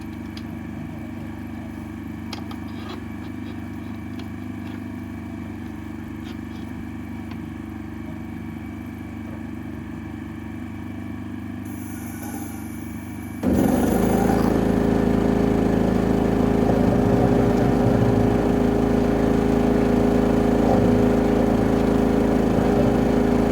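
Small engine of a high-pressure drain-cleaning washer running steadily. About halfway through it jumps abruptly to a much louder, higher run and holds there, with a short hiss just before the change.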